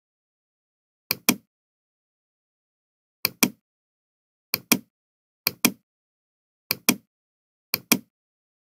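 Computer mouse clicking: six sharp double clicks, each pair a press and release, spaced one to two seconds apart with dead silence between.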